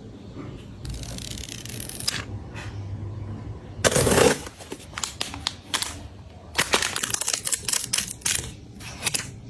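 Close-up packaging sounds from a makeup unboxing: a rustling hiss in the first two seconds, then a cardboard box's tear strip ripped open in one loud burst about four seconds in. After that comes a quick run of clicks and crinkles as a powder compact and its packaging are handled.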